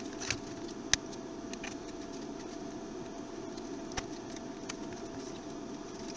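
Sharp clicks and small knocks of a plastic fan housing and circuit board being handled and fitted together, the loudest click about a second in and another around four seconds, over a steady low background hum.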